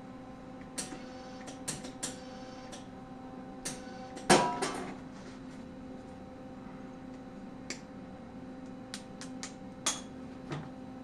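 Irregular light metallic clicks and clinks of tools and steel being handled at a welding bench, with one louder knock that rings briefly about four seconds in, over a steady hum.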